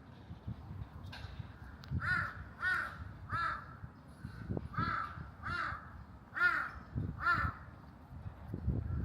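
A crow cawing, about seven harsh caws in two runs.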